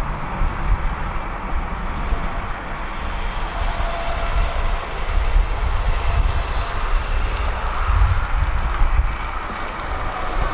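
A tram running on its rails, a steady low rumble with a hiss over it.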